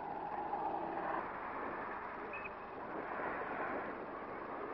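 Vehicle engines running in street traffic, a steady rumbling noise with a faint brief tone now and then.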